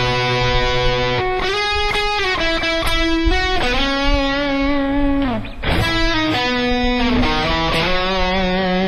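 Electric guitar playing a lead intro melody in C-sharp minor: held single notes and two-string double-stops with string bends, slides and vibrato. There is a brief break about five seconds in.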